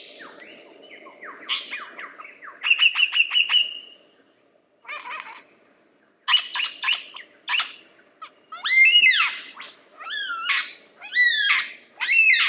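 Lyrebird singing a varied string of phrases: quick runs of short repeated notes in the first half, then a series of loud calls that sweep up and arch over, one after another, near the end.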